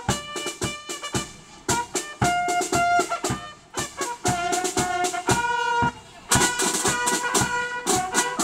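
A bugle and drum band playing a march: bugles hold sustained notes over a steady beat of bass and snare drum, with a couple of brief breaks between phrases.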